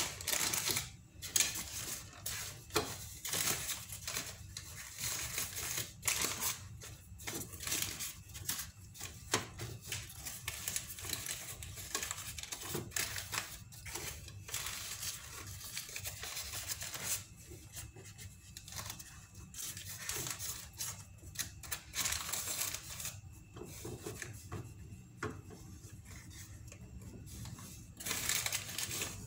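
Wax paper crinkling and rustling in irregular crackles as hands press pastry dough into a paper-lined baking pan.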